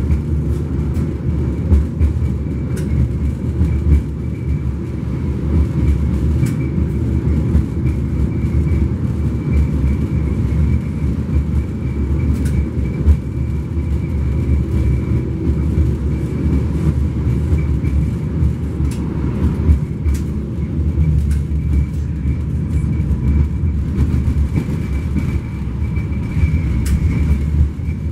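Low-floor 71-134K (LM-99K) tram running along the track, heard from inside the car: a steady, dense low rumble of wheels and running gear, with a faint constant whine and a few scattered clicks.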